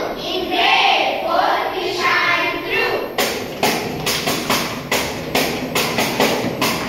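A group of children's voices, then from about three seconds in a tambourine struck by hand in a steady beat of about three to four sharp strikes a second.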